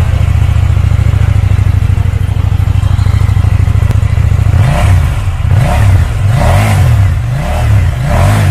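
KTM 790 Duke's 799 cc parallel-twin engine idling steadily, then revved in a run of short throttle blips, each rising and falling in pitch, from a little past halfway.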